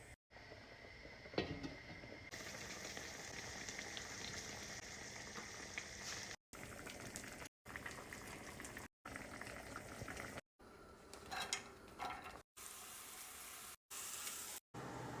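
Food sizzling as it fries in a pan, heard in a string of short clips that break off abruptly, with a sharp knock about a second and a half in and a brief clatter later on.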